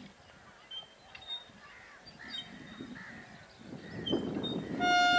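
A few short bird calls over quiet open-air ambience. Then the low rumble of an approaching train builds, and near the end a WAG9 electric locomotive's horn starts a loud, steady blast.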